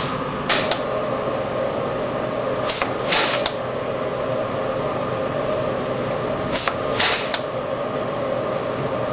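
Steady machine hum with short bursts of air hiss in pairs, a brief one then a longer one, about every four seconds, as a pneumatic bench tool cycles on a ring-shaped part held in an assembly fixture.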